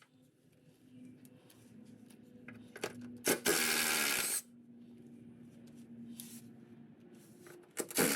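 A power tool run in one burst of about a second in the middle, working on the Jeep Cherokee XJ's transmission crossmember bolts, with faint clinks of handling around it.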